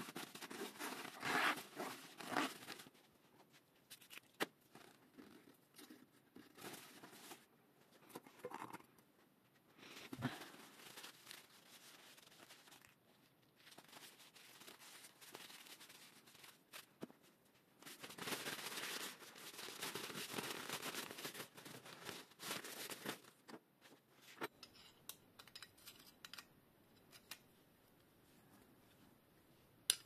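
Paper towels crinkling and rubbing as greasy bicycle hub parts and the hub axle are wiped clean. The rustling comes in spells of a few seconds, the longest a little past halfway, with light clicks and taps between them.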